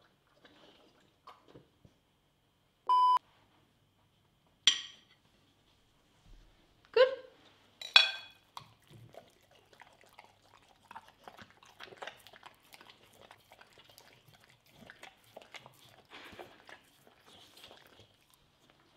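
A dog chewing, licking and smacking at food on a plate, heard as many faint irregular clicks and smacks through the second half. About three seconds in there is a short electronic beep. A sharp click and two brief pitched sounds come a little after it.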